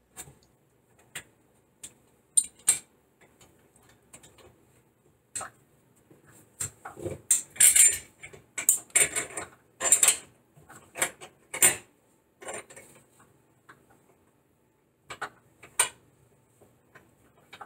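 Irregular metal clinks, knocks and scrapes as a horseshoe bracket is slid and worked onto the threaded stud post under a bathroom faucet's spout. The handling is busiest about midway and dies away near the end.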